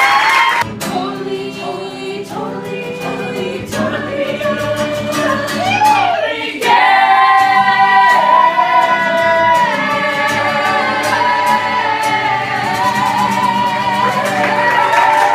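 Music: a group of voices singing together, choir-like, growing louder partway through. Applause comes in near the end.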